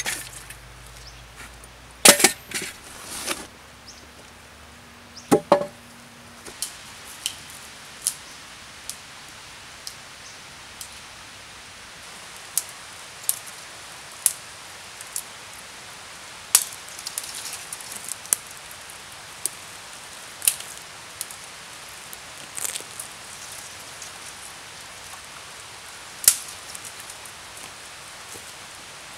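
Dry dead wood cracking and snapping: a few loud sharp cracks a couple of seconds in, then lighter single snaps every second or two.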